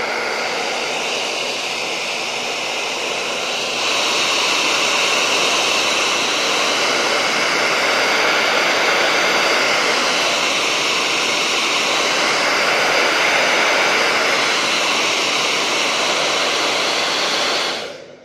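Hair dryer blowing hot air at close range onto the edge of a MacBook Air display to soften the screen adhesive, a steady loud rush of air and motor that gets louder about four seconds in and cuts off near the end.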